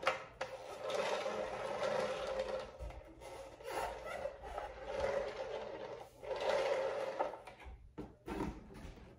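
Plastic lazy-Susan turntable organizer with bins being turned by hand, its rotating base rasping in three spells of a few seconds each.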